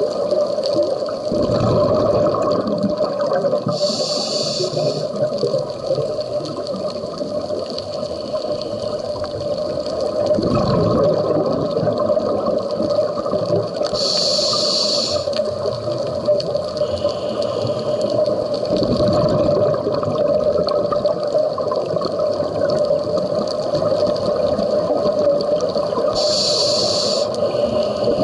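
Scuba diver breathing through a regulator underwater: three short hisses about 11 seconds apart, with a rumble of exhaled bubbles between each, over a steady underwater hum.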